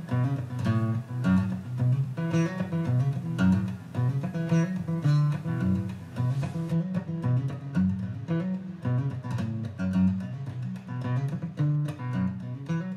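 Finger-picked acoustic guitar music: a continuous run of plucked notes over a moving bass line.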